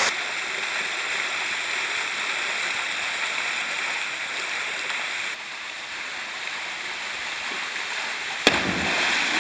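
Steady rush of a waterfall pouring into a canyon plunge pool, with a single sharp knock near the end.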